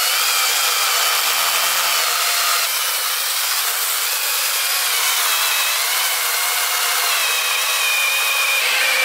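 Small handheld battery-powered mini chainsaw cutting the back cut through a large standing-dead pine trunk. It runs continuously: a high electric motor whine that wavers slightly in pitch as the chain loads, over the rasp of the chain tearing through the wood.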